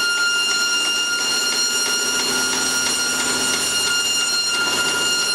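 Forest Model 236 travelling-table vertical bandsaw running with a steady whine while its 1-inch scallop-edge blade cuts through a roll of foam packing material wound on a cardboard core.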